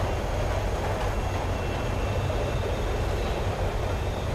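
Metro train running, heard from inside the carriage: a steady low rumble with a faint high whine over it.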